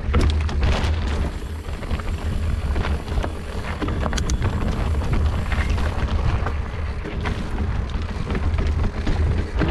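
Wind buffeting the microphone with a steady low rumble, and scattered rattles and knocks from a mountain bike riding over rough ground.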